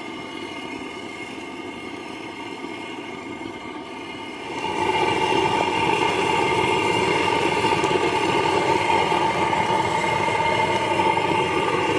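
An engine running steadily, a constant hum with several steady tones in it, becoming clearly louder about four and a half seconds in.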